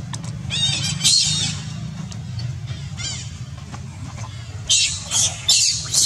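Baby macaque giving shrill distress screams as an older monkey grabs and pulls it about: one longer scream about a second in, a short one around three seconds, and four quick screams near the end.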